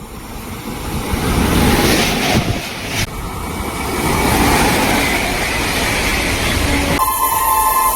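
A train passing at speed: a loud, noisy rumble of wheels and wind with a sharp break about three seconds in. Near the end it switches abruptly to a steady, multi-note train horn.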